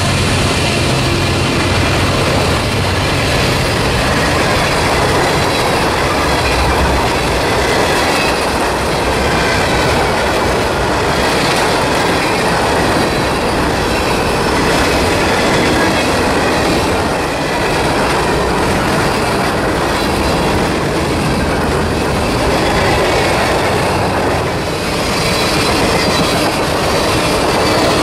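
Freight cars of a long manifest train rolling past on jointed or welded rail: a steady rumble and clickety-clack of steel wheels on the rails, with a faint high wheel squeal now and then.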